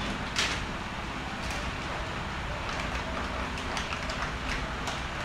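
Outer wrapper of a sterile glove package crinkling and crackling as its sides are peeled apart by hand, in small irregular crackles with a sharper one about half a second in.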